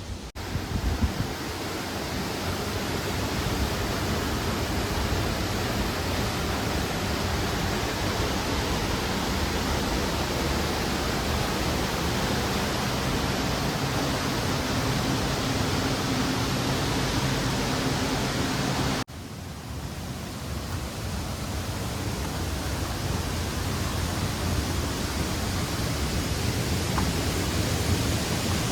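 Waterfall: a steady rush of falling water. It cuts off abruptly about 19 seconds in and resumes straight away.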